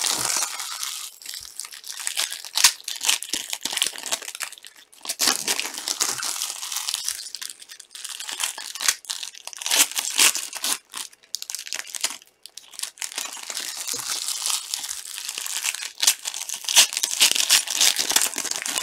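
Foil wrappers of Topps Chrome soccer card packs being crinkled and torn open by hand, in repeated bursts of crackling with brief pauses.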